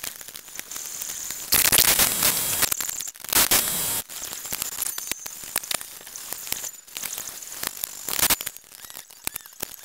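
Rustling, crackling handling noise with scattered clicks, from clothing and hands working close in a car's engine bay. It is loudest for a couple of seconds starting about one and a half seconds in.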